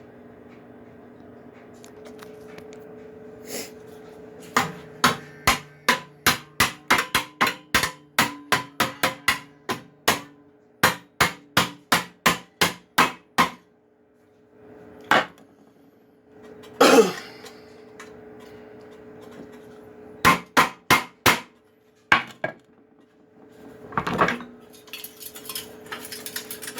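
Hammer blows on the cut-open sheet-steel muffler shell of a Cub Cadet LT 1045 lawn tractor, flattening it back down for welding. The blows come in a quick run of about three strikes a second, then as scattered single blows with a brief scrape in between.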